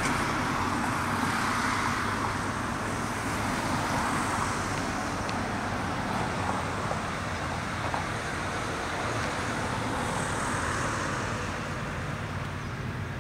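Road traffic noise: cars passing on a street, a steady hiss of tyres and engines that swells and eases as vehicles go by.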